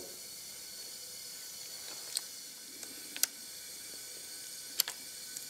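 A few sharp metal clicks and taps as a plier-type valve spring compressor is worked loose and lifted off a valve spring on the cylinder head: one about two seconds in, a close pair a second later and two more near the end, over a faint steady hiss.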